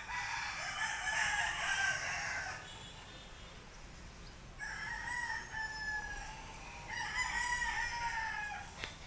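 Rooster crowing three times, each crow a long call of about two seconds.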